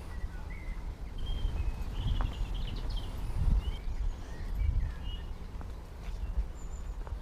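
Several small songbirds chirping and twittering in short, scattered calls, over a steady low rumble.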